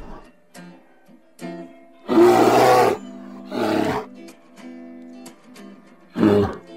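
Brown bears roaring three times while play-fighting in water; the first roar, about two seconds in, is the longest and loudest. Plucked-guitar background music plays throughout.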